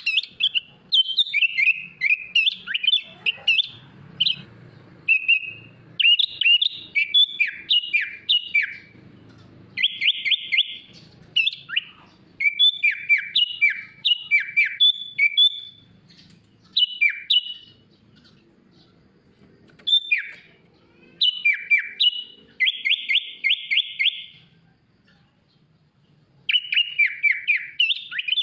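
Sooty-headed bulbul (kutilang) singing a varied song in bursts of quick chirps and downward-sweeping whistles, with two fast, even trills and short pauses between phrases.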